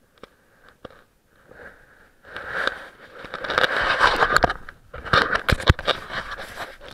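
Handling noise on a small action camera: loud rustling with scattered knocks and scrapes against the camera housing as it is moved about, starting about two seconds in.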